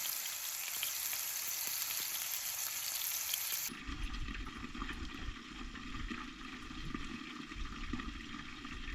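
Bacon sizzling in a frying pan, a steady hiss. A little under four seconds in it cuts off abruptly and a low rumbling noise takes over.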